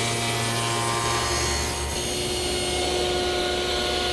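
Electric molding machine running steadily as walnut stock feeds under its knives, then, about a second and a half in, a table saw running steadily.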